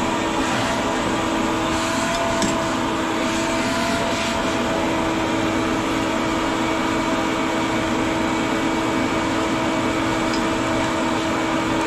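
Steady machinery noise from nearby refrigeration units under maintenance: a continuous whir and hiss with a steady hum.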